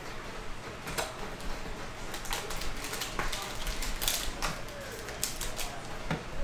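Cardboard trading-card hobby box and foil card packs being handled: a scattering of light taps and clicks as the box is opened and its packs are pulled out.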